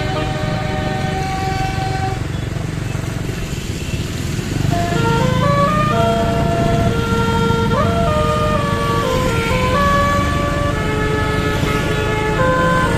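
Bus's multi-note basuri 'telolet' horn playing a tune, its tones stepping from note to note and louder from about four and a half seconds in, over the low rumble of the bus's engine.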